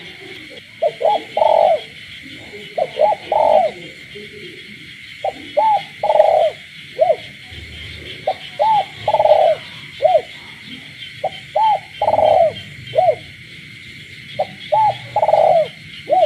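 A caged spotted dove cooing at night. It repeats its phrase of two short coos, a longer coo and a short final coo about every three seconds. A steady chorus of frogs and toads runs underneath.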